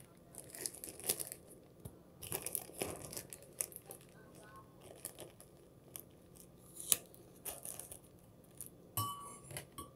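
Clear plastic sandwich wrap crinkling and tearing in irregular bursts as it is pulled open by hand, with a single sharp click and a brief knock near the end.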